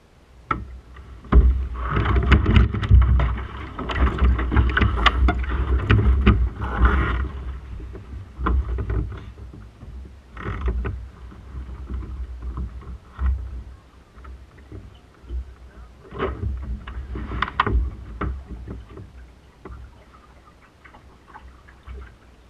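Snipe sailing dinghy under way: wind buffeting a deck-mounted microphone and water washing along the hull, with many sharp knocks from the boat and its gear. It is loudest in the first several seconds, then comes and goes in uneven surges.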